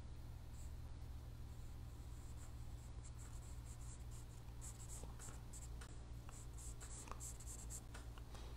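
A pen sketching lines on paper: faint, irregular scratchy strokes, busier in the second half, over a low steady hum.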